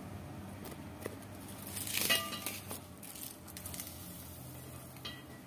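Curry leaves frying quietly in hot oil in a pan. About two seconds in there is a single ringing clink, with a few light clicks around it.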